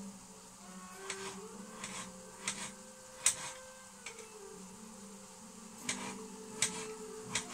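Kitchen knife chopping diced potato on a plastic cutting board: sharp, irregular chops about once a second, over a steady low hum.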